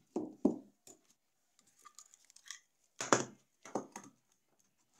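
Handling noise from amplifier repair on the workbench: a metal tool and the circuit board knocking and scraping, in four short clattering bursts, two near the start and two a little past halfway, with faint crackling between.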